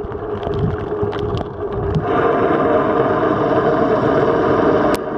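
Steady mechanical drone heard underwater, with several constant tones over a hiss; it gets louder about two seconds in, and a single sharp click comes near the end.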